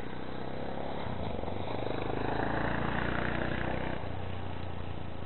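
Radio-controlled model airplane's motor droning as it flies overhead, growing louder toward the middle, then dropping in pitch and level about four seconds in.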